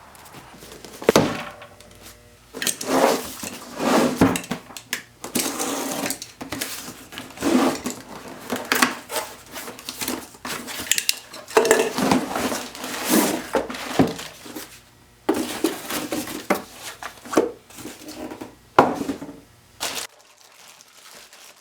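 A cordless Makita impact driver driving screws into pressure-treated lumber in short bursts, mixed with wooden knocks and clatter from handling the frame boards. The work noise stops shortly before the end.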